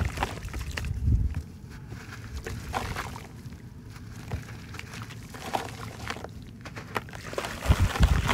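Hands crumbling and crushing clumps of dried mud and sand in a bucket: gritty crunching and crackling, with a few low thumps near the start and again near the end.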